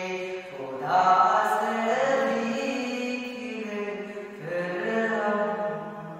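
A man singing an Urdu hamd (Islamic devotional song) solo, in long held notes that glide between pitches, with short breaks between phrases.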